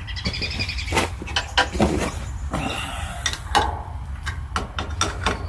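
Metal clicks and knocks of a wrench working a fuel fitting, with brief squeaks, over a steady low hum.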